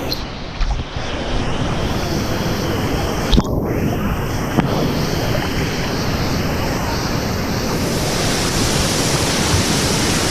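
Waterfall: a steady rush of falling water heard close up. There are a couple of short low thumps, about half a second in and about three and a half seconds in.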